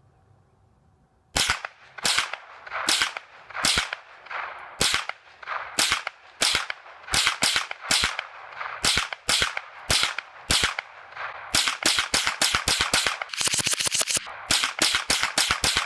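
A .22 rimfire M4-style semi-automatic rifle firing shot after shot, starting about a second in at one to two shots a second. Near the end comes a very fast string of shots, after which the steady firing goes on.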